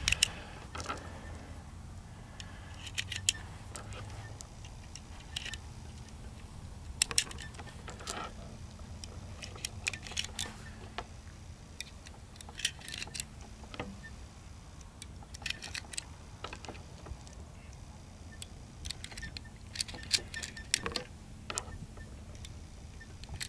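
7.62x25mm Tokarev cartridges being pressed one at a time into a CZ 52 pistol magazine: short metallic clicks and clinks at irregular intervals, a dozen or so in all.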